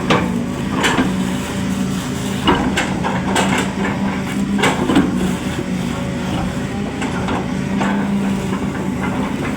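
Excavator's diesel engine running steadily, with irregular sharp knocks and clanks every second or so over the hum.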